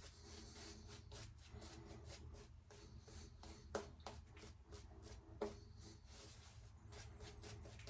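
Faint, quick scrubbing of a lathered shaving brush, brushing shave-stick lather, with a couple of small knocks.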